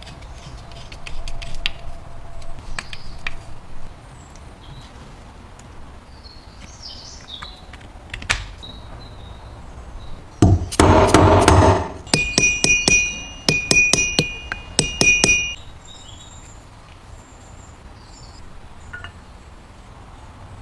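Metal parts being handled and struck: scattered clicks, a loud scraping burst about halfway through, then a run of ringing metallic clinks for about three seconds.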